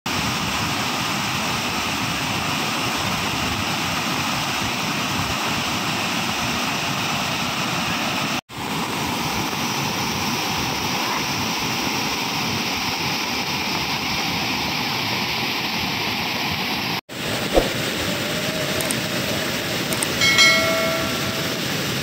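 Steady rushing roar of a swollen waterfall, floodwater pouring over rock ledges. It cuts out for an instant twice. Near the end comes a click, then a short bell-like chime.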